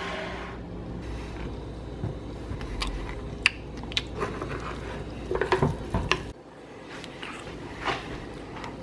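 Kitchen handling sounds: scattered clinks and knocks of utensils against a plastic blender jar and a bowl while banana nice cream is scooped out, with a cluster of knocks about five and a half to six seconds in. A low steady hum under them stops about six seconds in.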